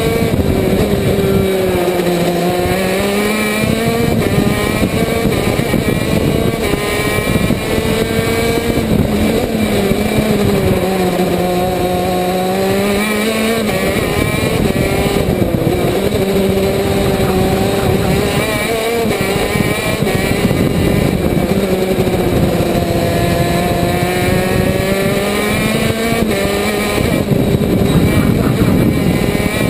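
KZ2 shifter kart's 125cc two-stroke engine at racing speed, heard onboard, its pitch rising, falling and stepping down again and again as the kart goes through the gears and the corners.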